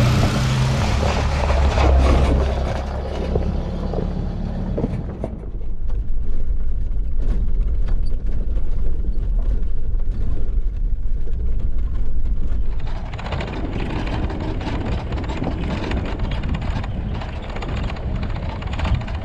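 A vehicle on the move: steady low engine and road rumble, with a brighter rushing layer that fades out about five seconds in and comes back about thirteen seconds in.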